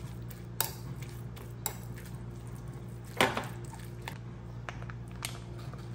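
Metal spoon stirring flaked tuna and mayonnaise in a small glass bowl, clinking against the glass about half a dozen times. The loudest knock comes about three seconds in. A steady low hum runs underneath.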